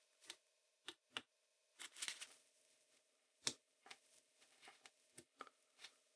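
Faint scattered clicks and small taps from a screwdriver and gloved hands working at a vintage animal clipper's switch housing, the sharpest click about three and a half seconds in, over a faint steady hum.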